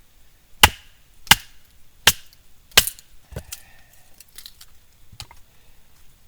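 Firewood being split by hand: four sharp blows about 0.7 s apart, followed by a lighter knock and a few small wooden clicks as the pieces fall apart.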